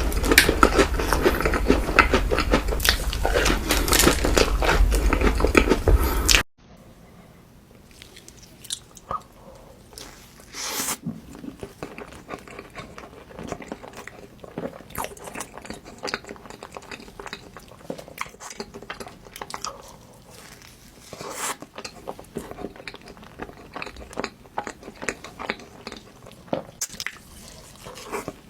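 Close-miked eating sounds: a person biting and chewing food, with many short sharp clicks of the mouth and food. About six seconds in the sound drops abruptly to a quieter stretch of the same kind of chewing.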